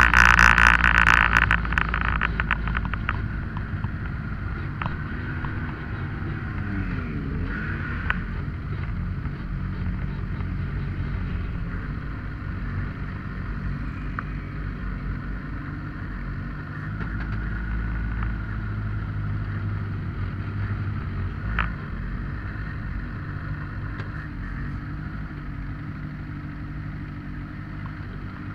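Engine of an FIA Formula Two single-seater heard from the cockpit, loud for the first couple of seconds and then dropping to low, steady revs as the car rolls slowly, with a few faint clicks.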